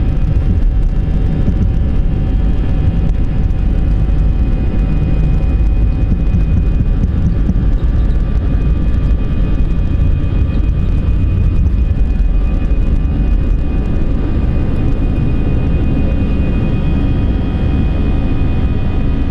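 Airliner engines at takeoff or climb thrust, heard as a loud, steady rumble with steady whining engine tones over it, as from inside the passenger cabin.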